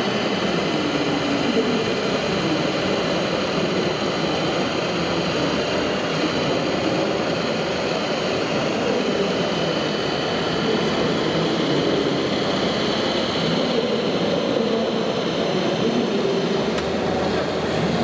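Steady mechanical whirring of RC scale model construction machines running, with a faint high whine over it.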